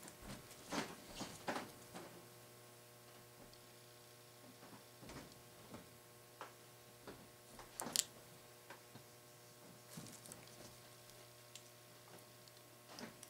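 Faint scattered clicks and light taps from gloved hands working at the hub of a metal spoked wheel, a few close together near the start and a sharper click about eight seconds in, over a steady low electrical hum.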